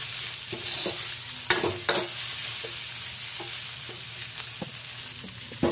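Fried rice sizzling steadily in a large aluminium wok while a spatula scrapes and knocks against the pan, with a couple of sharper clanks about a second and a half and two seconds in and another near the end.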